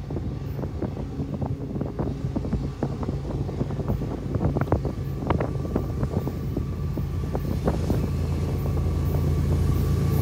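Approaching BNSF diesel freight locomotive, its engine a steady low drone that grows louder as it nears, with irregular clicks and wind noise on the microphone.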